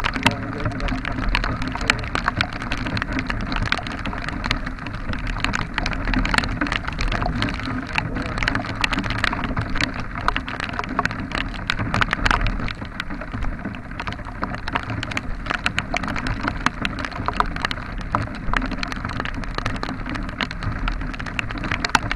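Rain striking the camera and its built-in microphone in dense, irregular sharp taps, over a steady low rumble from the moving vehicle.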